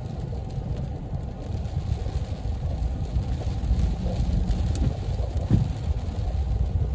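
Thunderstorm rain on a car, heard from inside the cabin as a steady low rumble, with traffic passing on the wet road alongside. A single sharp tick about five seconds in.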